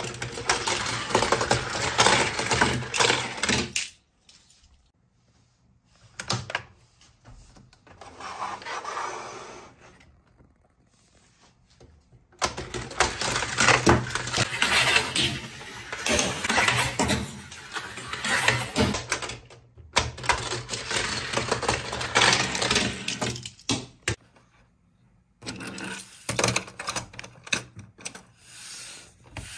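Small toy cars clattering and rattling down a grey plastic spiral race track, in several bursts of fast clicking with short pauses between.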